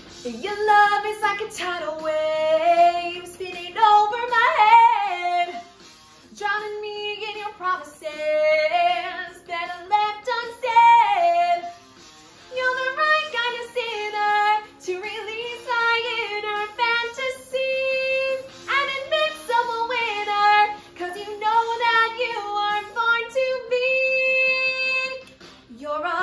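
A woman singing a pop/rock melody solo, without accompaniment, in phrases broken by short pauses.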